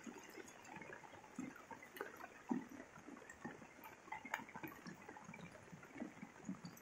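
Light rain falling, a faint even hiss with irregular drops hitting close by.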